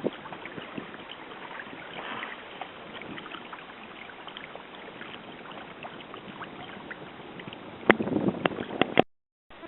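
Water lapping and gurgling along the hull of a sailing proa under way in light wind, with small ticks. A few sharper knocks come near the end, and then the sound cuts off suddenly.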